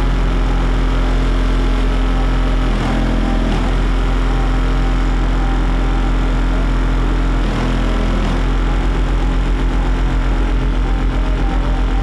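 Car-audio subwoofers in an SPL competition vehicle playing a loud, sustained deep bass tone, heard from outside the closed vehicle. The tone dips briefly about three and seven and a half seconds in, and it pulses rapidly in the last few seconds.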